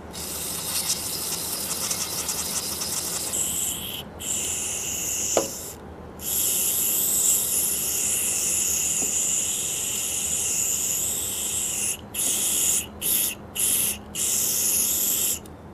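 Aerosol carb/choke and parts cleaner (Gumout Jet Spray) hissing out through a red extension straw as it is sprayed into a VVT oil filter screen to flush out oil residue. There are three longer sprays, then four short bursts near the end.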